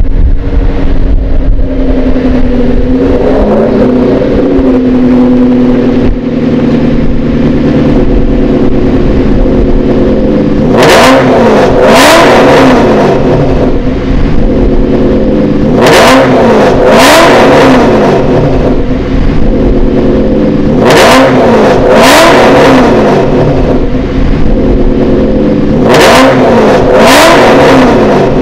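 2009 Ford Mustang Shelby GT500's supercharged V8, breathing through Bassani headers, X-pipe and Cervini's side exhaust, idling, with a slight rise in revs a few seconds in as the car creeps forward. From about eleven seconds in it is revved in pairs of quick throttle blips, four pairs about five seconds apart, each falling straight back to idle.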